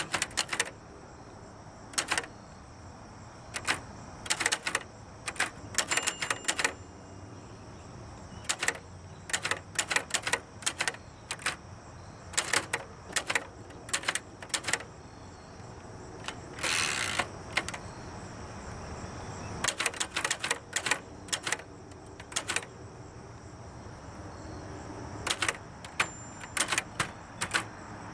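1931 Triumph Klein typewriter being typed on: irregular runs of sharp type-bar strikes, with one short rasp about 17 seconds in, likely the carriage being returned.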